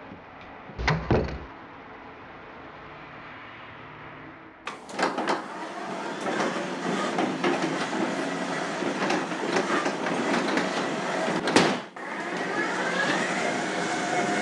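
A thud about a second in, then from about five seconds a train passing close by, rumbling with clattering wheels. Near the end its wheels give a rising squeal.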